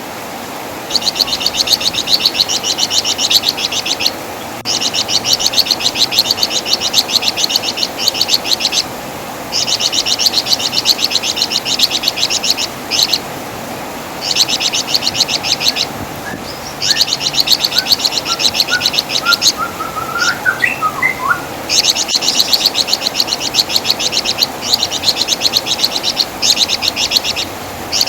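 Flamboyan (wergan Jawa) singing a rapid, high, rattling chatter in repeated bouts of two to four seconds with short pauses between them. A few faint short lower notes come in around the middle, over a steady background hiss.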